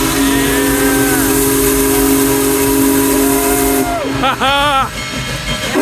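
Union Pacific Big Boy No. 4014's steam whistle sounding one long, steady chord that cuts off about four seconds in, over a steady hiss. Right after the whistle stops, onlookers' voices shout and cheer.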